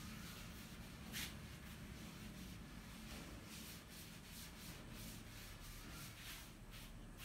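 Chalk being wiped off a blackboard with a cloth duster: a series of faint, brisk rubbing strokes, one louder stroke about a second in.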